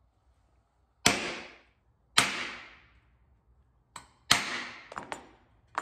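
Three loud, sharp strikes on metal, each ringing out and fading over about half a second, with a few lighter knocks and taps between and after them.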